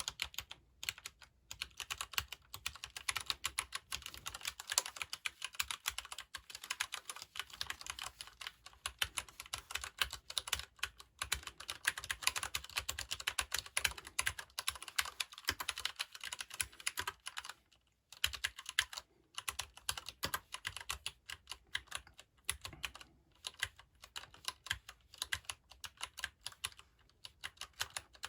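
Fast, continuous typing on a Leopold FC750R PD mechanical keyboard with Cherry MX Brown switches, tactile and non-clicky: a dense run of keystroke clacks. There are a few brief pauses, the clearest about two-thirds of the way through.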